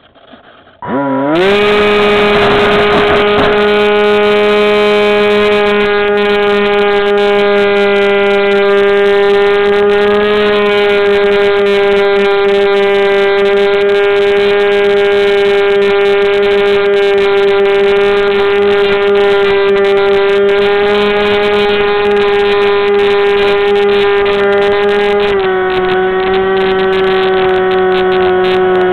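Aerobird 3 RC airplane's electric motor and propeller spinning up quickly about a second in, then holding a loud, steady whine at full power for takeoff and climb. The pitch drops a little near the end as the throttle eases.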